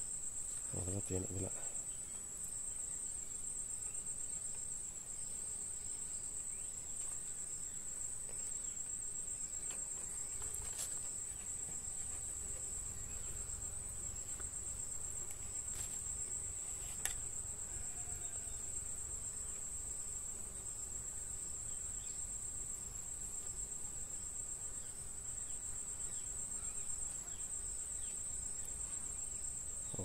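Steady high-pitched insect chirring that runs without a break, with a short low sound about a second in and a few faint sharp clicks around the middle.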